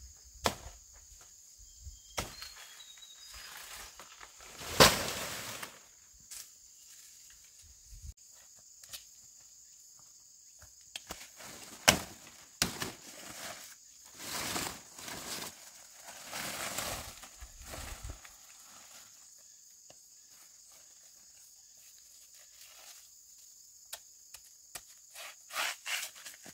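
Steady high-pitched insect chorus, broken by scattered sharp knocks and clicks and a few short spells of rustling or scraping.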